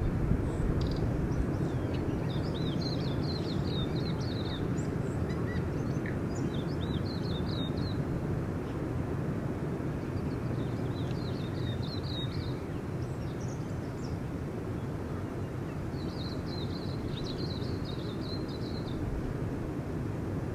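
Steady roar of distant surf breaking on a beach, with short spells of quick, high chirping from small birds every few seconds.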